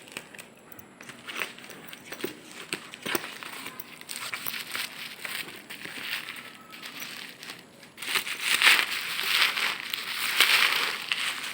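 Plastic packaging being handled and crinkled as a parcel is opened: scattered rustles and clicks at first, then louder, continuous crinkling for the last few seconds.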